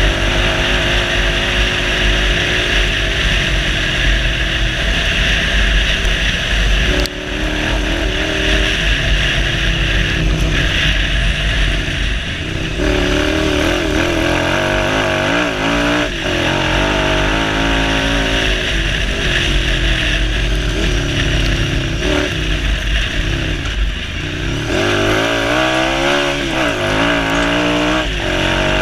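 Suzuki SV1000's 90-degree V-twin motorcycle engine in an off-road buggy, driven hard. Its note repeatedly rises and falls as the throttle is opened and closed and the gears change, with brief drops in level about seven seconds in and again near twenty-four seconds.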